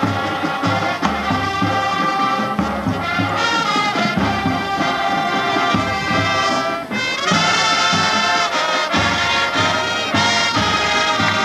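High school marching band playing a field show: brass over a steady low beat, with a short break about seven seconds in before the full band comes back in.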